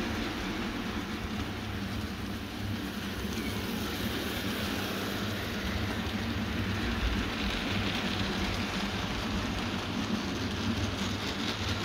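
OO gauge model goods train of four-wheeled wagons and a brake van running past on model track: a steady rolling rattle of small wheels on the rails, with a low steady hum underneath.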